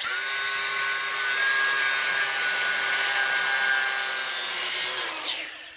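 A high-speed power grinding tool cuts metal from a car's steering knuckle, notching it to clear a big-brake kit, with a steady whine over a hissing grind. About five seconds in it is let off and winds down, its pitch falling.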